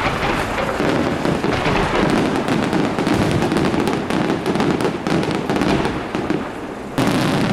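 Aerial fireworks display: a loud, dense, unbroken barrage of rapid bangs and crackling from many shells bursting at once, with a sudden louder blast about seven seconds in.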